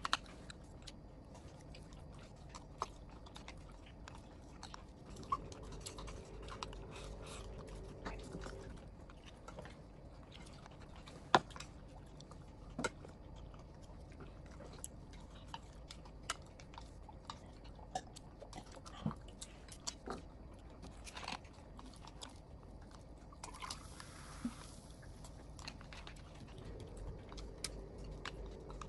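Eating sounds: chopsticks clicking and tapping against ceramic rice bowls and the serving dish, with chewing of stir-fried squid and bell pepper and rice. The clicks are scattered and irregular; the sharpest comes about eleven seconds in.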